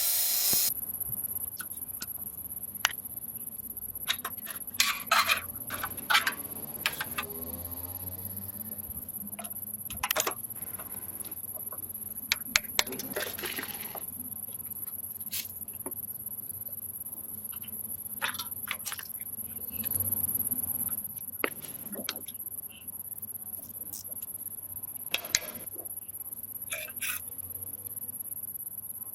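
Scattered metallic clicks, clinks and scrapes, as of tools and metal parts being handled, over a faint steady high-pitched whine.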